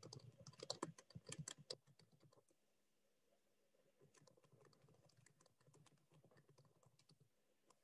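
Faint typing on a computer keyboard: a quick run of key clicks for about two seconds, then near silence with a few faint scattered ticks.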